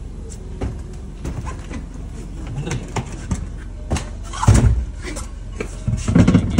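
Handling noise in a car's boot: scattered clicks and knocks with two louder thumps, about four and a half and six seconds in, as a hand works around the spare-wheel well and spare tyre, over a steady low hum.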